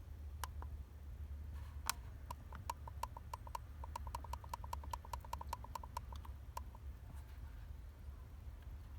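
A rapid run of short beeping clicks from a Xiaomi Portable Electric Air Compressor 2's control buttons, speeding up and then stopping abruptly, typical of a button held to step the target pressure up.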